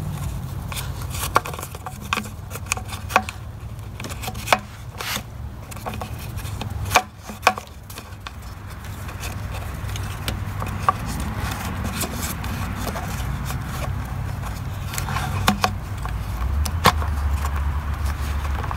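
Hands working a rubber grommet and fuel lines into a plastic gas tank: scattered small clicks, taps and rubbing of rubber and plastic, over a steady low background rumble.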